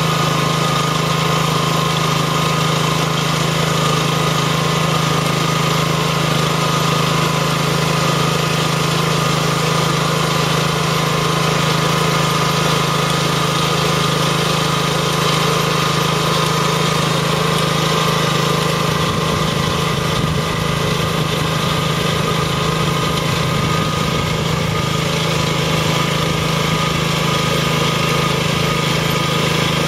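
Riding rice transplanter's engine running steadily as it plants seedlings in a flooded paddy. A deeper, fluttering low rumble joins in about two-thirds of the way through as the machine comes close.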